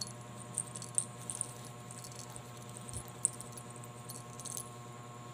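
Faint, scattered little metallic jingles from a cat's collar as the cat rolls and wrestles, over a steady low hum.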